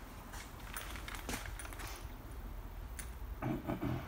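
Footsteps and clothing rustle on a hard terrazzo floor, with a sharp click about three seconds in and a brief, louder muffled sound near the end.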